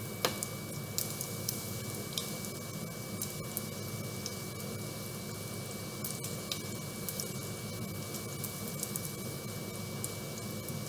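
Bacon strips sizzling in a frying pan, the grease crackling in scattered pops, while shrimp are stirred with a utensil in a second skillet.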